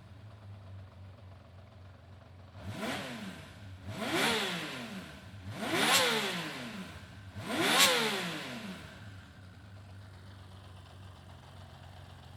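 Honda CBX1000 air-cooled inline-six idling, then blipped four times, each rev rising and falling back, the later ones louder, before it settles back to a steady idle. The engine is being run to confirm it works after its carburettor fuel leak was repaired.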